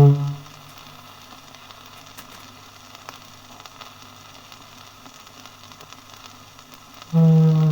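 A foghorn's low, deep blast cuts off just after the start, leaving several seconds of steady hiss with faint crackle from an old archive disc, before the foghorn sounds again suddenly near the end.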